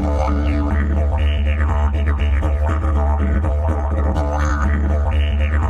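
Didgeridoo music: a continuous low drone with overtones that shift in a pulsing pattern above it.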